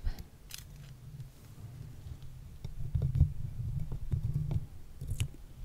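Fingers handling a microphone up close, working stickers on its surface: low, muffled rubbing and bumping that comes in irregular bouts, with a few faint clicks.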